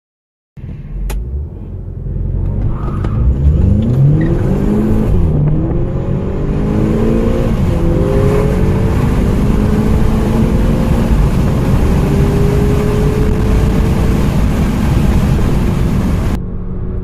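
Turbocharged four-cylinder VW GTI petrol engine accelerating hard from a standstill, its pitch climbing and dropping back at each of several upshifts; a second engine's rising note overlaps it.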